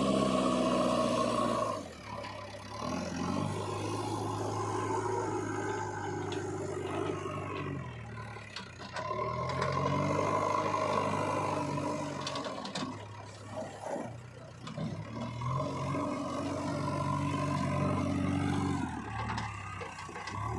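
Diesel engine of a JCB 3DX backhoe loader working, its revs falling and rising again several times as it digs and loads, with a few short metal knocks and scrapes.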